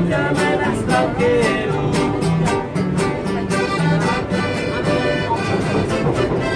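Mariachi band playing live: strummed guitar in a steady rhythm, with a melody over a bass line.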